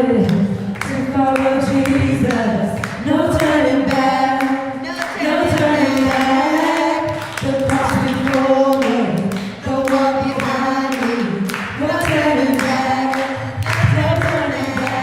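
A group of voices singing a worship song together, with music.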